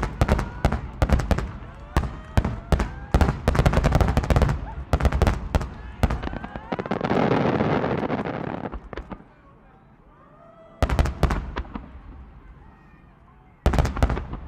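Aerial firework shells bursting in rapid volleys of sharp bangs. About seven seconds in they give way to a long crackling hiss from glittering crackle stars, and two shorter volleys of bangs follow near the end.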